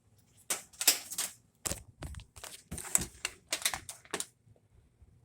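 An irregular run of sharp taps and rustles, about a dozen over three and a half seconds, from typing on and handling a device while the washer model number is entered for a search.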